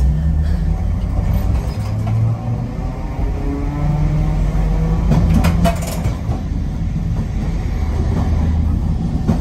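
Nagasaki Electric Tramway streetcar running along street track, heard from the driver's cab: a steady low motor hum over rumbling wheels, with a few sharp clicks about five and a half seconds in.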